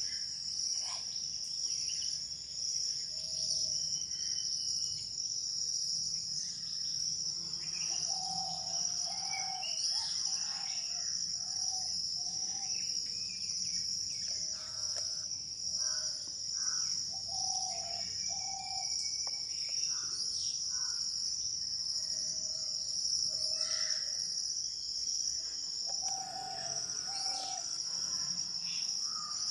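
Steady high-pitched insect drone, with scattered bird calls over it: short low notes, often in pairs, and brief higher chirps.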